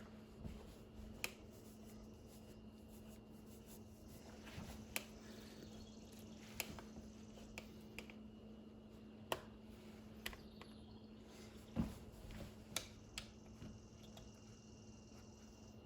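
Scattered small sharp clicks and taps, about a dozen spread irregularly, from a screwdriver working the screws of a switch cover plate, over a faint steady hum.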